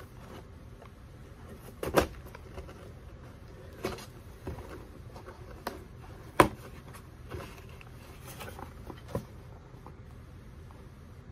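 Cardboard box of granola bars being cut open with a small knife: scattered clicks, taps and scrapes of blade and cardboard at an uneven pace. The sharpest snap comes a little past six seconds in, with another about two seconds in.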